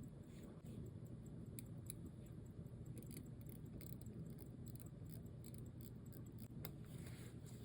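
Faint, irregular small clicks and taps of watchmaker's tools handling the parts of a mechanical watch movement, over a steady low hum.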